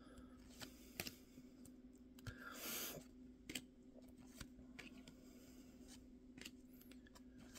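Faint flicks and taps of paper trading cards as a stack of baseball cards is shuffled through by hand, one card at a time, with a soft swish about two and a half seconds in. A low steady hum sits underneath.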